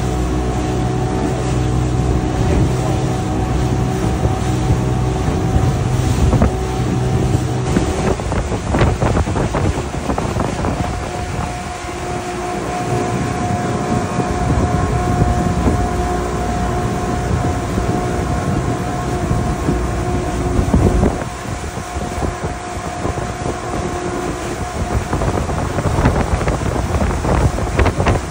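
Twin Evinrude V6 outboard motors running at speed, their steady drone mixed with wind buffeting the microphone and the hiss of the wake spraying behind the boat. The engine note shifts about eight seconds in, and the low rumble drops off about twenty seconds in.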